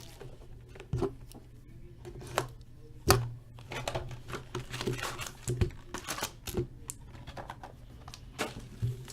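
Hands handling a hobby box of hockey trading cards and its packs: scattered clicks, taps and light knocks, the loudest about three seconds in, over a steady low hum.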